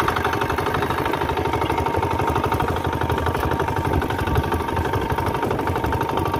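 Fishing boat's engine running steadily under way, a rapid even throb with a steady whine on top.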